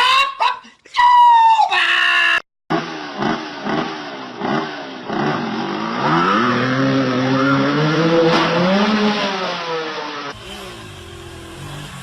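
A shrill cry cut off after about two seconds, then an engine revving again and again, its pitch rising and falling, ending in one longer slow rise and fall.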